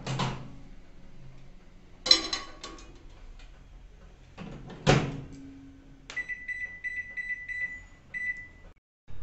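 LG convection microwave oven: the door is pulled open with a click, something clatters inside about two seconds in, and the door shuts with a sharp bang about five seconds in. A high steady beeping follows for about two and a half seconds as the oven is set to bake for five minutes at 180 °C.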